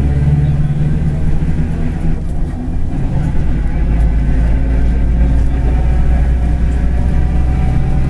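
Mercedes-Benz OF-1721 city bus under way: its diesel engine and drivetrain running with a steady low drone, which the title puts down to a droning bearing. The sound eases briefly about two and a half seconds in, then carries on, rising slightly in pitch near the end.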